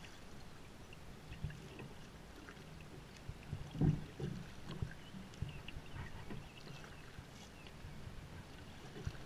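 Sea kayak being paddled on calm water: paddle blades dipping and water washing along the hull, with irregular low knocks on the hull now and then, the loudest about four seconds in.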